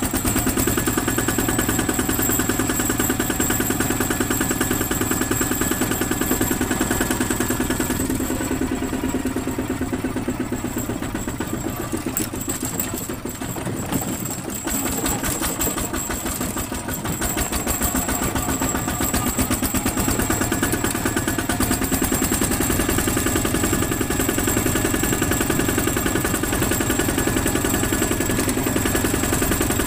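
Single-cylinder diesel engine of a two-wheel walking tractor running steadily under way, a rapid even putter. It drops back for several seconds around the middle, then picks up again to full running.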